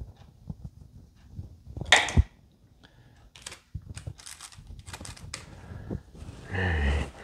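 Small parts and tools being handled on a wooden workbench: a sharp knock about two seconds in, then a run of light clicks and rattles.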